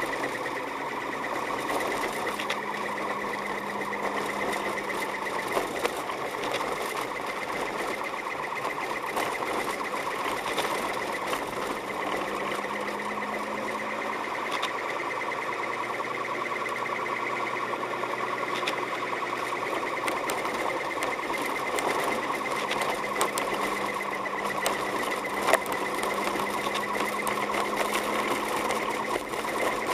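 A car driving on a snow-covered road, heard from inside the cabin: a steady, fast mechanical buzz of engine and running gear with a slowly wavering low hum and scattered clicks and knocks, the sharpest near the end.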